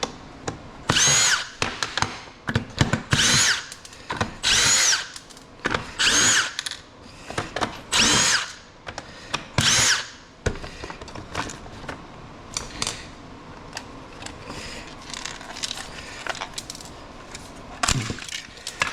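Power drill run in six short bursts, each spinning up and winding down, backing screws out of a small electronic device's case. After that come light clicks and rattles of parts being handled.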